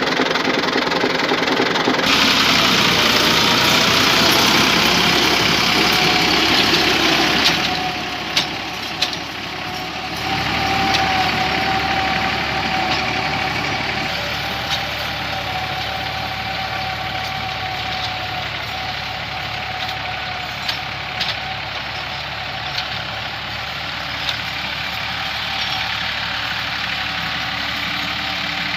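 Massey Ferguson 260 tractor's diesel engine running steadily. It is loudest for the first seven seconds or so, then settles to a quieter run with a faint steady whine. A few short clicks come through.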